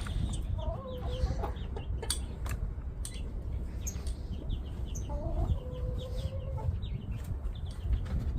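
Backyard chickens clucking, with two drawn-out, wavering hen calls, over many short, high chirps from small birds and a steady low rumble.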